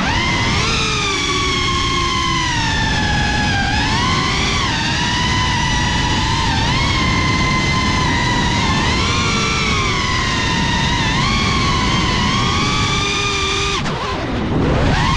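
Geprc Cinelog 35 cinewhoop's brushless motors and propellers whining, the pitch rising and falling with the throttle. Near the end the pitch drops steeply as the throttle is cut for a dive, then climbs again as power comes back.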